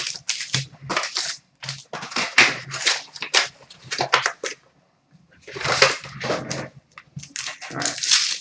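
Packaging being torn open and crinkled, in irregular rustling, tearing bursts with a short pause about halfway through.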